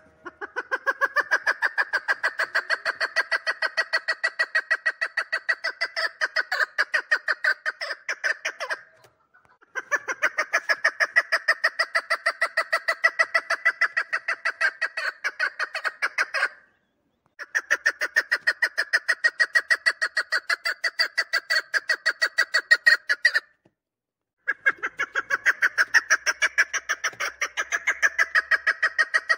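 Chukar partridge calling: rapid, evenly repeated notes at about five a second, in four long runs of several seconds each, separated by breaks of about a second.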